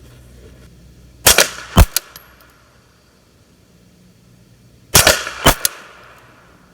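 Four suppressed 9mm shots from a PSA AKV carbine with a SilencerCo Octane 45 HD suppressor, firing American Eagle 124-grain rounds. They come in two pairs, the shots in each pair about half a second apart and the pairs about three and a half seconds apart. A small click follows each pair.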